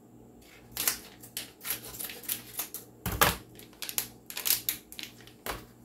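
Scissors snipping open a Bisquick biscuit-mix pouch and the plastic pouch crinkling as it is handled: an irregular run of crackles and clicks, the loudest about three seconds in.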